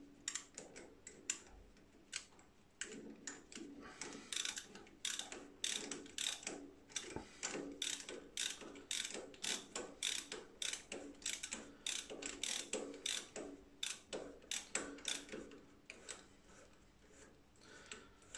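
Ratcheting T-handle tap wrench clicking in quick, irregular runs as a number three (bottoming) tap is worked back and forth to clean out the bottom of a tapped hole in a shaft end. The clicking thins out and stops about three-quarters of the way through.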